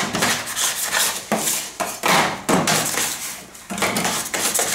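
Metal bench scraper scraping across a stainless steel work table in quick repeated strokes, about two or three a second, clearing flour and dough scraps.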